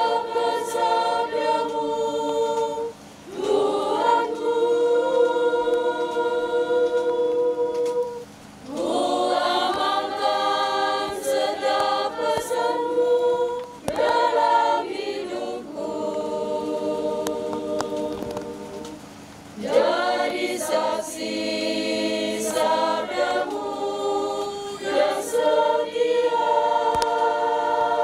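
Small congregational choir of women and men singing a hymn together in slow phrases of long held notes, with a short pause for breath about every five seconds.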